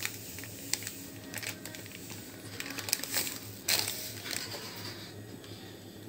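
Semolina in a hot steel kadhai: scattered light clicks and crackles over a faint hiss, with a louder rustle a little past three and a half seconds in.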